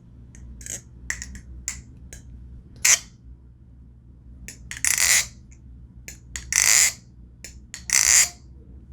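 Prisma balisong being flipped: a run of light clicks, then four louder clacks as the handles swing round and strike, about a second and a half apart. The rubbery handle caps on its handle ends damp the ring from the blade.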